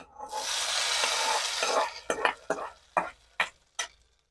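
Hot sesame-oil tempering of mustard seeds, curry leaves and dried red chillies poured onto tomato chutney in a steel bowl, sizzling hard for about a second and a half. Then several short, separate clatters of the ladle against the bowl.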